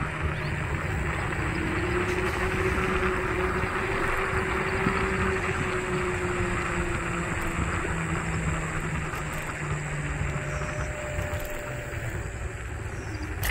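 Wolf Warrior electric scooter riding along a concrete path: steady tyre rumble and wind noise, with a faint motor whine that rises a little about two seconds in and eases off again.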